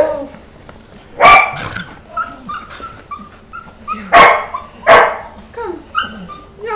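Puppies barking in play: three loud, short barks, one about a second in and two close together a little after four seconds, with small yips and whines between them.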